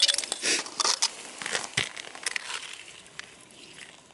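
Broken ice crunching and clinking as a plastic ice scoop clears freshly chopped ice chunks and slush from an ice-fishing hole: a quick run of sharp crunches in the first two seconds that then thins to a few faint ticks.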